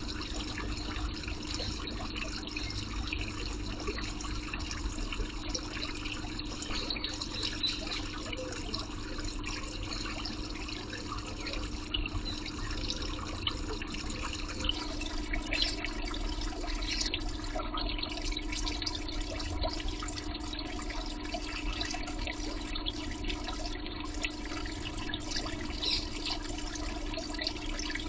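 Steady rushing hiss of exhaust venting from a flue terminal, with a steady hum underneath.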